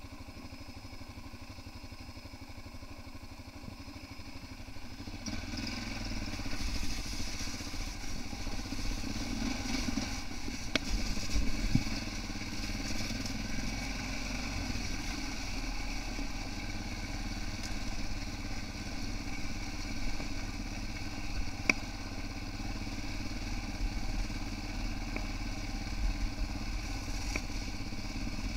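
Yamaha dual-sport motorcycle engine idling for about five seconds, then pulling away and running steadily as the bike rides a rough, snowy track. A few sharp knocks and rattles come from the bike going over bumps, the loudest at about 11 and 22 seconds in.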